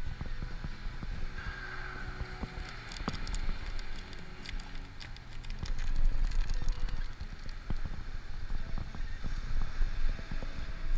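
Wind buffeting the camera's microphone in a steady low rumble, with scattered small clicks and knocks from handling the gear.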